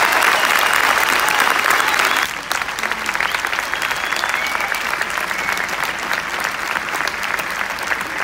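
A large concert audience applauding: dense, sustained clapping that drops abruptly to a slightly lower level about two seconds in.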